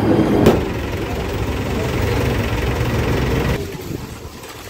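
Steady low rumble of a Mumbai local electric train, with a sharp knock about half a second in. The rumble cuts off suddenly near the end.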